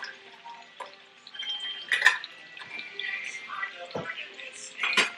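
Tri-tip sizzling as it sears in a cast-iron skillet, under light background music, with a few sharp clinks and knocks of kitchen utensils.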